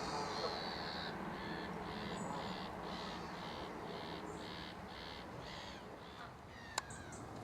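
A bird calling a steady series of about a dozen short, high notes, about two a second, fading a little towards the end. A single sharp click near the end.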